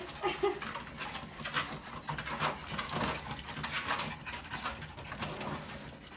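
Pugs walking on a slowly running treadmill: irregular clicking and tapping of their paws and claws on the belt over the machine's low, steady hum.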